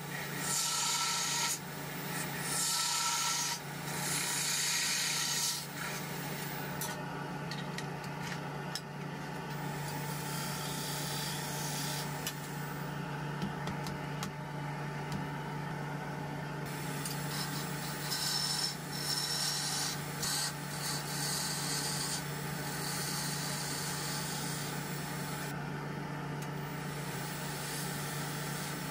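Wood lathe running with a steady hum while a gouge cuts the spinning zelkova bowl, the cuts coming as long spells of hissing and scraping. The cutting eases off for several seconds in the middle, leaving mostly the lathe's hum, then picks up again.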